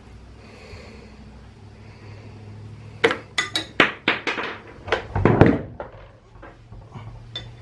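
Tools and parts being handled: a quick run of sharp clicks and knocks starting about three seconds in, ending in a heavier thunk, then a few faint ticks.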